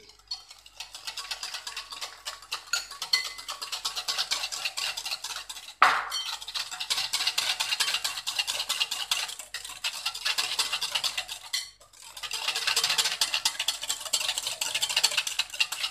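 Wire whisk beating a runny egg-and-milk batter in a glass bowl: fast, continuous clinking and scraping of the wires against the glass. The whisking stops briefly twice, with a sharp knock on the bowl just before the first break, about six seconds in.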